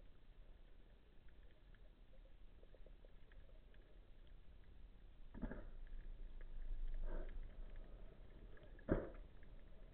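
Faint underwater sound of a diver swimming with a speargun: soft water swishes about every second and a half from about halfway on, and one sharper knock near the end.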